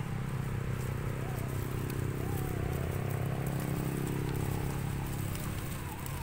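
Axial SCX10 RC crawler's 27T brushed electric motor and gear drive whining at a steady pitch as it crawls over dry leaf litter, fading near the end. Light crackle of leaves under the tyres.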